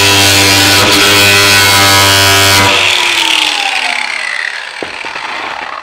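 Corded angle grinder running at full speed and grinding metal. It is switched off a little under three seconds in and winds down with a falling whine.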